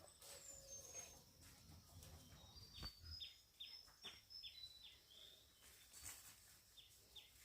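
Faint rural ambience in which a small bird gives a quick run of short, high, downward-sliding chirps through the middle, with a single sharp knock about three seconds in.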